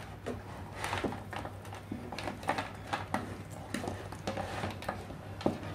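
Flat ribbon power-supply cables handled and flexed by hand: irregular rustling and light clicks of the cables and their plastic connectors, with one sharper knock near the end, over a steady low hum.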